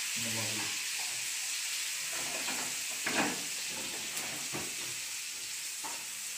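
Food sizzling steadily in a hot pan on a stove, with stirring, and a short louder clatter about three seconds in.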